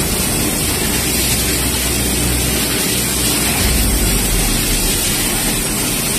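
Fiber laser cutting machine with a 6 kW laser source cutting sheet metal, now working normally after its control board and power supply board were replaced. It makes a loud, steady hiss over a low rumble that swells about four seconds in.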